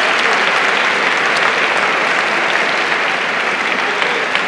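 Crowd applauding steadily, easing off slightly near the end.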